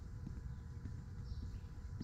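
Footsteps of a person walking, soft ticks every half second or so, over a steady low rumble on the microphone.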